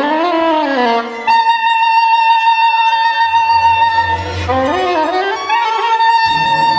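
Soprano saxophone and string orchestra playing contemporary classical music: sliding, swooping figures open the passage, then a long high note is held from about a second in. Near the five-second mark a brief swooping figure over a low bass line breaks in before the held note returns.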